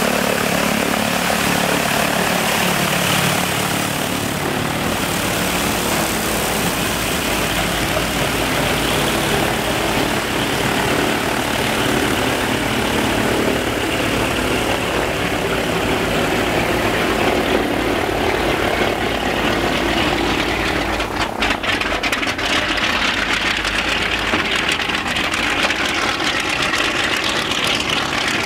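Shvetsov ASh-82T fourteen-cylinder twin-row radial aircraft engine of an Ilyushin Il-14T running steadily on a ground run, its propeller turning; loud throughout.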